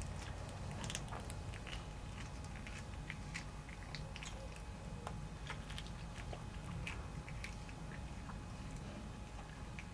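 A domestic cat chewing on small prey, with wet crunching and irregular sharp clicks of its teeth through bone and fur.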